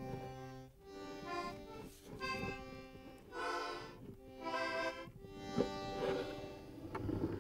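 Film score music: sustained reedy notes in swelling phrases about a second apart, with a sharp click about five and a half seconds in.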